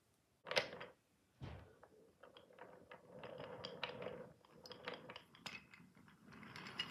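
Wooden toy train and its coaches rolling along wooden track, a low rumble with many small clicks. A knock comes about half a second in.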